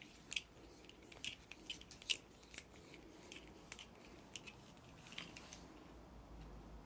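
Faint, irregular light clicks and ticks, about a dozen, scattered over the first five seconds or so and then dying away.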